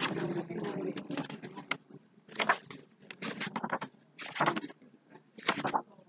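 Paper rustling in several short bursts as the pages of a book are leafed through.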